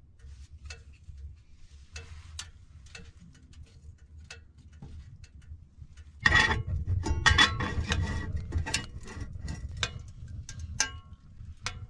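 Wood burning in a small perforated portable stove, crackling with irregular sharp pops. About six seconds in, the crackling turns much louder and denser for a few seconds, then thins out again.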